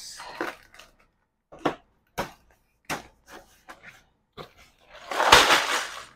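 A cardboard Lego set box being opened by hand: a scatter of light clicks and taps from the flaps and packaging, then a longer, louder rustle of the packaging about five seconds in.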